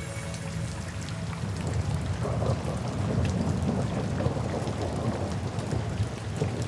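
Steady rain falling, with a low, rolling rumble of thunder that builds about two seconds in; soft background music tones fade out at the start.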